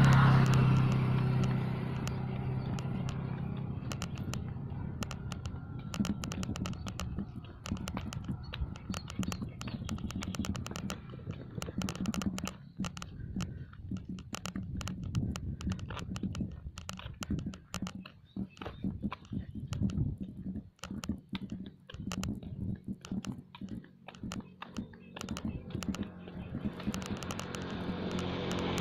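Small motorcycle engine passing close by, loudest at the start and fading over the next few seconds. Then many irregular clicks and crackles, and near the end another vehicle engine grows louder as it approaches.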